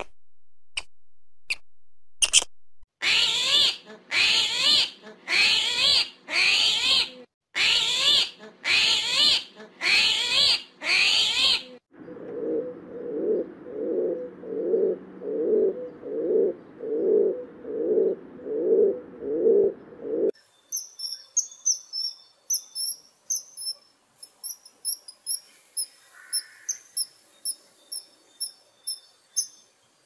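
A run of animal calls: a few sharp clicks, then a string of loud calls a little more than one a second, then a lower call repeated quickly, and high chirping in the last third.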